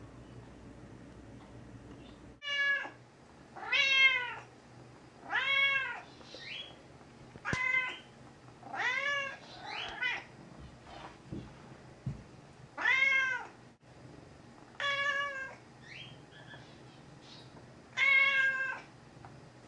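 Gray tabby cat meowing over and over, about eight loud meows a second or more apart, each rising then falling in pitch.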